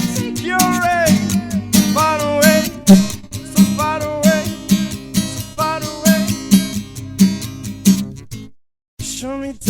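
Acoustic guitar played solo, a melody of bending, sliding notes over a steady beat. The sound cuts out completely for about half a second near the end.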